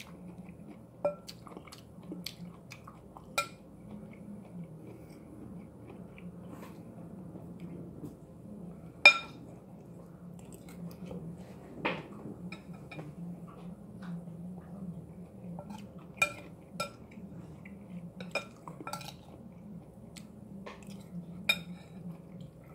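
Metal eating utensil clinking and tapping against a dish while vegetables are scooped up: a dozen or so sharp, short clinks spread unevenly, the loudest about nine seconds in, with quiet chewing in between. A steady low hum runs underneath.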